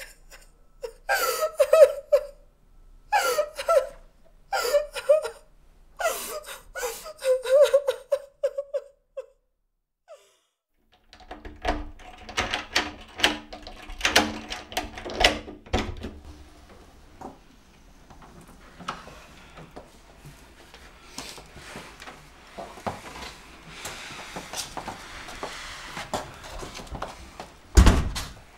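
A person sobbing in short, gasping bursts. These stop about nine seconds in. After a brief silence come soft clicks and knocks around a door handle, then faint clicks and a dull thud near the end.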